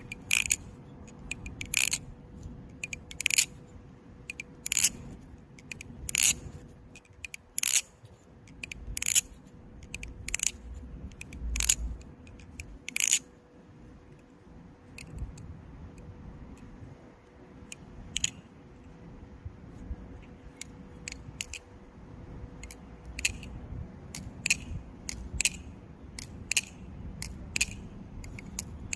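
Baliplus REP carbon-fibre balisong being flipped: sharp metallic clicks and clacks as the handles and blade swing open and shut. The clicks come irregularly, one or two a second, louder in the first half and softer later.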